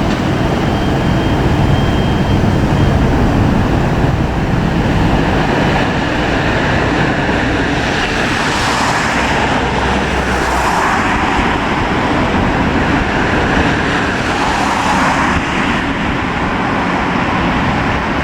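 Fire engines driving past: steady engine rumble and tyre noise, swelling twice as vehicles go by, about halfway through and again near three quarters of the way.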